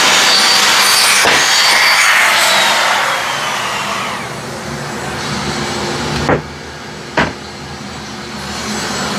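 Table saw ripping a board with a tapering jig, the cut finishing in the first few seconds. The blade's whine then falls as it spins down, over a lower steady hum. Two sharp knocks about a second apart come past the middle.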